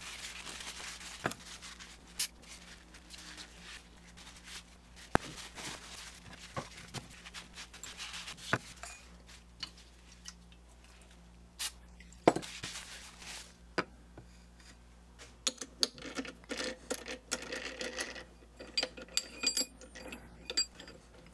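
Paper towel rubbing and crumpling over a steel part, with a few sharp knocks in between. Near the end, a run of small metallic clinks and ringing taps as the steel jaws of a mini lathe's three-jaw chuck are handled and changed.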